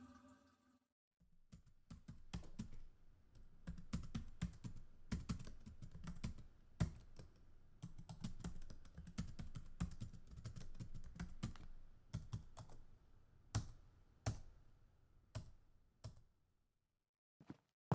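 Typing on a keyboard: rapid, irregular key clicks starting about a second in, thinning out to a few scattered taps near the end.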